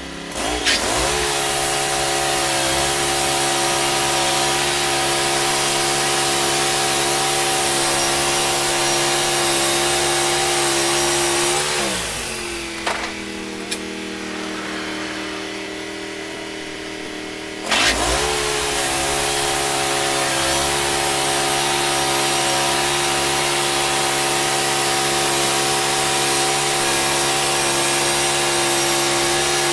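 Wood-Mizer LT15 band sawmill's gas engine coming up to speed within the first second and running steadily under load as the band blade cuts a log, throwing sawdust. About twelve seconds in it drops back to a lower idle for roughly six seconds, then revs back up and runs steadily again.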